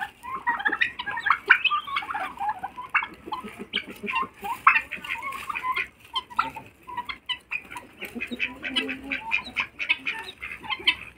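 Mixed poultry flock of helmeted guineafowl, chickens, turkeys and a duck calling together: a dense run of short, overlapping clucks and calls, several a second, without a break.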